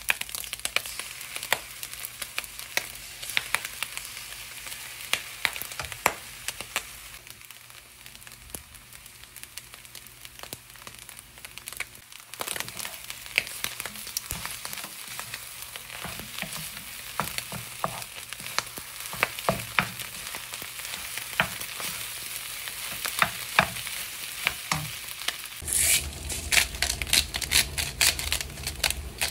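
Fried rice sizzling in a wok, with a wooden spatula clicking and scraping against the pan as the rice and egg are stirred. Near the end a louder, rapid run of clicks sets in over a low hum.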